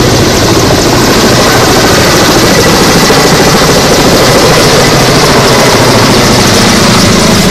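Kamov Ka-32 coaxial-rotor helicopter hovering low over water and then climbing away with a filled water bucket: loud, steady rotor chop and turbine noise with a thin high whine, the downwash whipping the water surface into spray.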